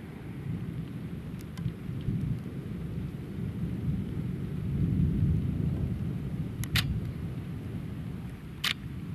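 Distant thunder rumbling low and continuously, swelling to its loudest about five seconds in and then easing off. A few sharp clicks cut through, two close together near seven seconds and one near the end.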